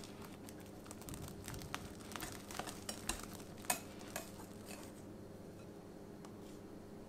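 Wire balloon whisk stirring egg yolks into stiff meringue in a glass bowl, its wires clicking and tapping against the glass. The tapping is busiest in the middle, with one sharper tap, then settles to a softer stir.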